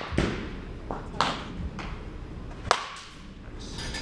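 A DeMarini CL22 slowpitch softball bat hits a pitched softball about 2.7 s in with a sharp crack and a brief ring. Lighter knocks and thuds come before and after it.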